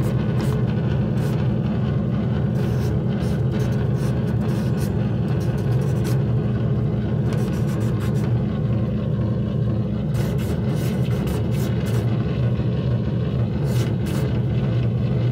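Amplified painting: a steady low electric drone with scattered scratchy strokes of the brush on the surface, picked up by microphone and played loud through an amplifier.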